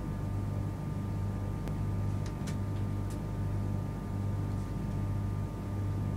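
Inside a stationary Mark 4 passenger coach: the steady low hum of the train's onboard equipment, swelling and fading slightly, with a few faint clicks about two to three seconds in.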